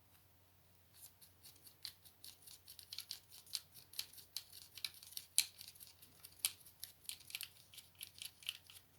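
Light, uneven clicks and ticks of small plastic and metal tailgate latch parts being handled and fitted together, starting about a second in and going on in a quick irregular run.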